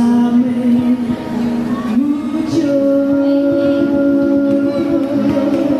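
Live music with singing: long held sung notes that step up to a higher held note about two seconds in.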